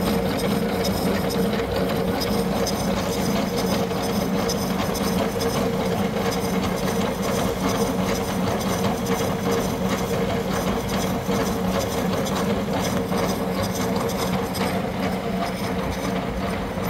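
Milling machine running a module 4 disc gear cutter through a bronze worm-wheel blank, cutting the tooth spaces one at a time. A steady machine hum with a dense, rapid grinding of the cutter teeth in the metal.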